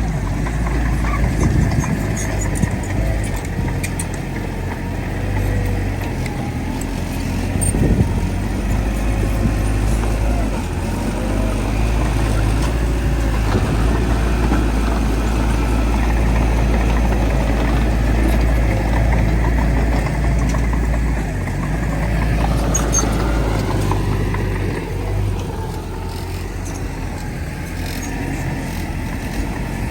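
Heavy diesel earthmoving machinery running steadily, the bulldozer's and dump trucks' engines droning low under load, with one sharp knock about eight seconds in.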